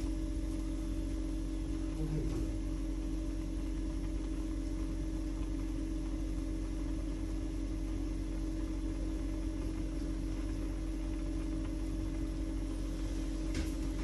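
Steady low electrical hum of a kitchen appliance running at the stove while a saucepan of instant noodles cooks.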